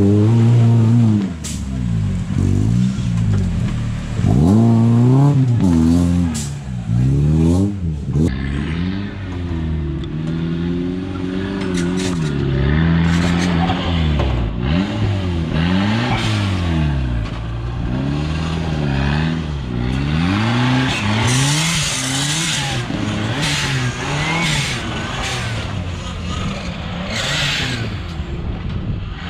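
Off-road 4x4 engines revving hard while climbing steep mud slopes: the revs rise and fall over and over as the throttle is blipped and released.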